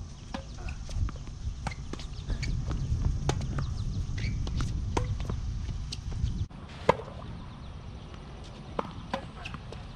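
Tennis ball being struck by rackets and bouncing on a hard court during a rally: a string of sharp pops, under a low rumble that stops suddenly about six and a half seconds in.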